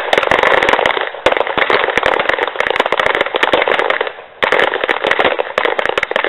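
Rapid, overlapping pistol shots, many in quick succession, with a brief break about four seconds in before the firing resumes.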